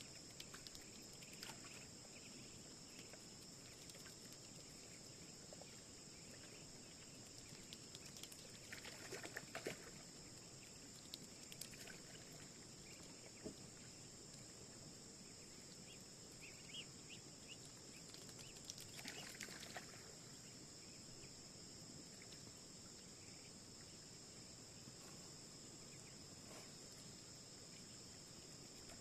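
Quiet outdoor ambience: a faint, steady high-pitched hiss, with a few soft rustles and knocks about a third of the way in and again around two-thirds.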